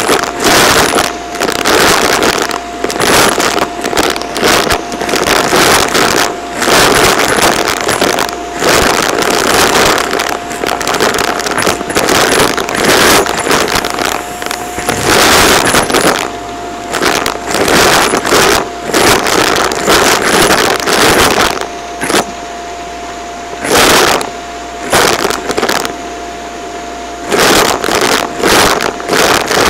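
Bagless upright vacuum cleaner running with a steady motor whine while debris sucked through its hose rattles and clatters into the clear plastic dust bin. The clatter comes in dense, irregular bursts with a few brief lulls.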